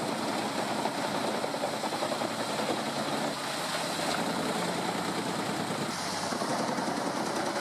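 Engine of a large horizontal-feed wood chipper running steadily, an even mechanical drone with no bass and no crunching or feeding strokes.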